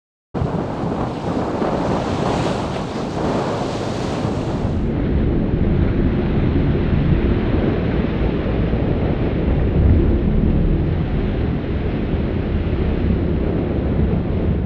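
Wind buffeting the microphone over the rush of a boat's churning wake and the open sea, a steady loud roar heaviest in the low end. About five seconds in the high hiss drops away and the roar carries on.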